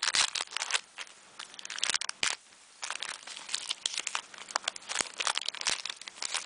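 Foil trading-card pack being crinkled and torn open by hand, with a run of irregular crackling rustles and a couple of short pauses as the wrapper gives way, then cards being handled.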